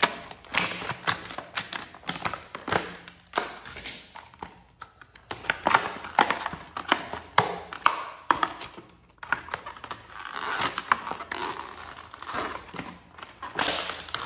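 Scissors cutting into a rigid plastic clamshell package, then the stiff plastic crackling and crinkling as it is pried and peeled apart by hand, with irregular snaps and clicks throughout.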